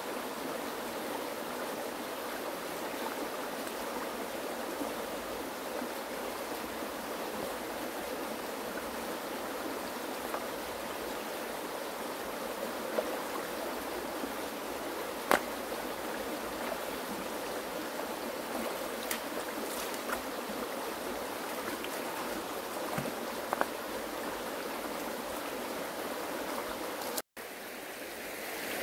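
Water flowing steadily, with a few faint clicks, and a momentary break near the end.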